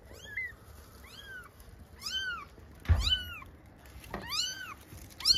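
Four-day-old newborn kitten mewing repeatedly, about six thin, high cries roughly once a second, each rising and then falling in pitch. A thump about three seconds in is the loudest single sound.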